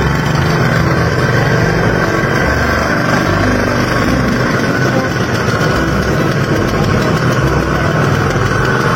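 Small engine of a motor vehicle running steadily, played as the engine sound of a bajaj auto rickshaw, with an uneven low rumble.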